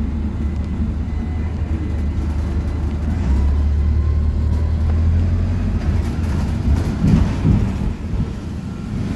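PAZ 320414 city bus running, heard inside the passenger cabin: a steady low engine and road drone that grows stronger about three seconds in, with a few knocks around seven seconds.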